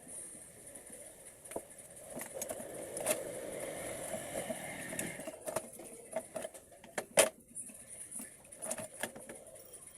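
Scattered light clicks and metallic clinks of hand tools and small metal parts being handled, with a louder knock about seven seconds in.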